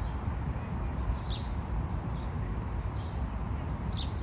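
A bird chirping: short, high, falling chirps about once a second, over a steady low rumble.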